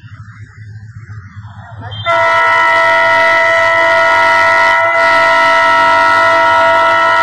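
A low rumble, then about two seconds in a diesel locomotive's horn starts abruptly and sounds loud and unbroken, several notes together, dipping briefly once midway.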